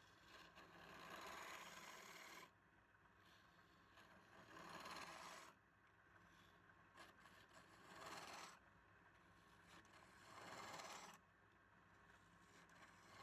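Faint scraping of a turning tool cutting wood on a spinning lathe, in repeated passes: each cut a hissing scrape of a second or two, about every three seconds.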